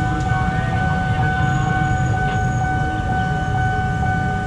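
Nippon Signal electronic level-crossing alarm sounding a steady, unbroken high tone over a low rumble.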